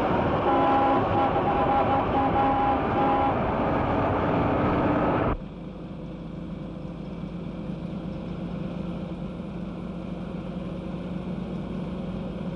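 A motor vehicle running, with steady tones over the noise. About five seconds in, the sound cuts abruptly to a quieter, steady engine drone with a low hum.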